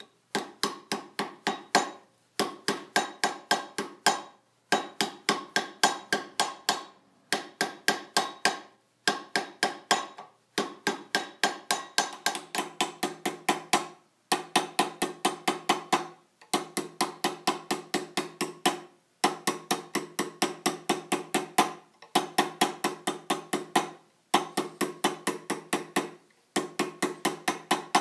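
Planishing hammer striking a copper vase over a steel stake in quick, even blows, several a second, each with a bright metallic ring. The blows come in runs of about two seconds with short pauses between them, as the piece is turned to planish the next course.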